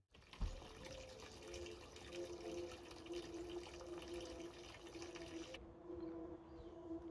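Water from a garden hose pouring into a plastic wash bucket, a steady rush that cuts off suddenly after about five and a half seconds. A single thump comes about half a second in.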